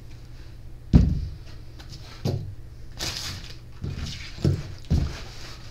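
A small starter motor and loose parts being set down on a covered workbench: a handful of dull knocks, the loudest about a second in, with a brief rustle of plastic wrapping midway, over a steady low hum.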